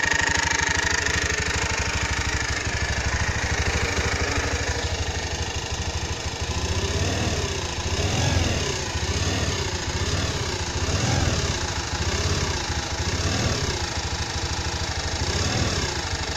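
Honda Click150i scooter engine running with a whirring sound: a high steady whine over the idle for the first few seconds. From about six seconds in the engine is revved up and down again and again, roughly once a second.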